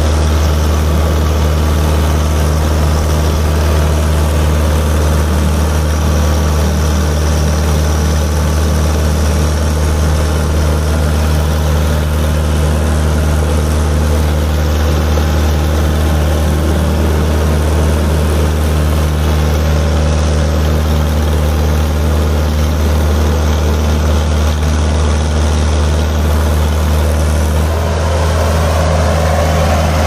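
Mahindra Arjun 555 tractor's diesel engine running steadily under heavy load as it tows a chain of three tractors behind it. Its note changes shortly before the end.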